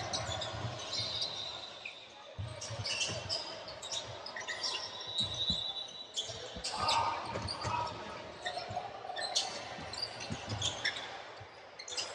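Basketball game play on a hardwood gym court: sneakers squeaking in short, high chirps and the ball thudding on the floor.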